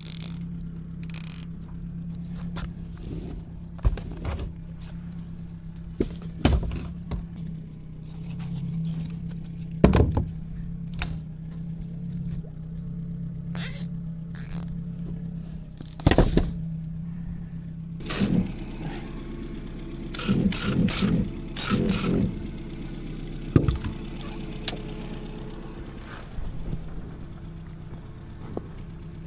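A boat motor running steadily underneath a string of sharp knocks, scrapes and rattles as wire crab pots and bait are handled on the deck, with a busy clatter about two-thirds of the way through.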